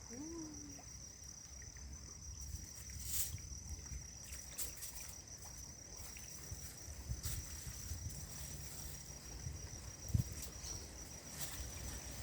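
An insect trilling steadily at a high pitch, over a low rumble of wind on the microphone, with a few sharp clicks.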